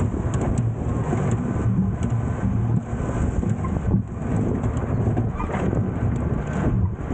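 An M&W rotary hoe's steel-tined wheels clattering and clicking steadily as they roll through grass sod, poking aeration holes in the hay field, over the constant drone of the pulling tractor's engine.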